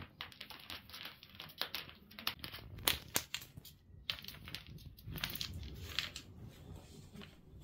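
Irregular light clicks, scrabbling and rustling from a kitten playing with a string wand toy: paws and claws on a bamboo floor mat and a sisal scratching post, and the string dragging.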